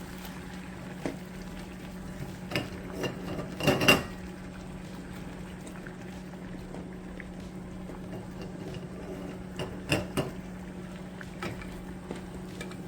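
Pot of water at a rolling boil bubbling steadily under a low hum, with a few short clinks and knocks of a slotted spoon against the pot as eggs are lowered in, the loudest about four seconds in and another about ten seconds in.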